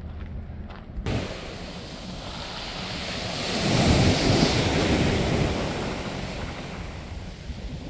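Sea surf washing onto a beach, starting suddenly about a second in, swelling to its loudest a few seconds later and then easing, with wind buffeting the microphone.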